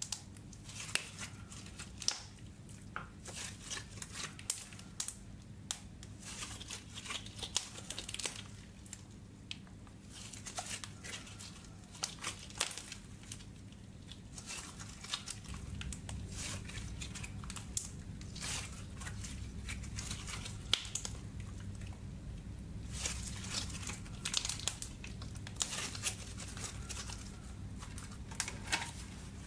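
Makeup-mixed slime being stretched, squeezed and folded by hand, giving irregular sticky crackles and small pops as it pulls and tears apart. A steady low hum runs underneath and grows louder about halfway through.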